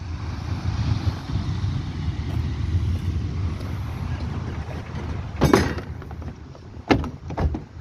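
Steady low rumble of wind on the microphone, with three sharp knocks of gear being handled in a pickup truck bed, one about five and a half seconds in and two near the end.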